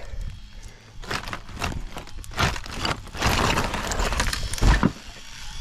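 Cinder block wall being knocked down: a run of sharp knocks and cracks, then a dense clatter of breaking block about three seconds in, ending in a heavy thud.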